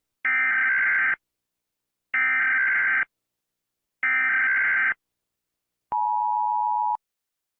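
Emergency Alert System SAME header: three bursts of data tones, each about a second long, about two seconds apart. About a second after the last burst comes a single lower, steady beep lasting about a second.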